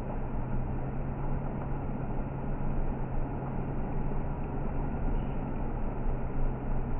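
Vehicle engine running steadily at low speed, a constant low hum heard from inside the cab.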